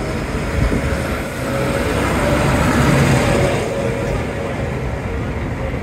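Large modern diesel tractor driving past, its engine noise swelling to its loudest about three seconds in and then fading as it moves away.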